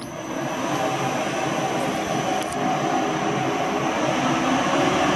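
Lathe motor and gearing run by a variable frequency drive, running forward and gradually speeding up and growing louder as the drive's output is turned up from about 20 toward 33 hertz. A steady high whine sits over the running noise.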